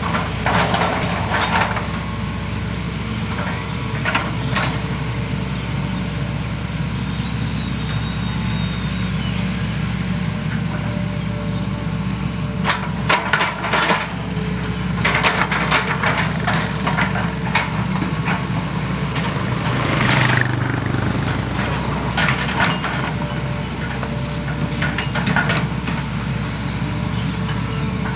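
Diesel engines of two working hydraulic excavators, a Hitachi EX200-5 and a long-reach Sumitomo SH120-3, running steadily, with scattered metal clanks and scrapes and a brief high squeal about six seconds in.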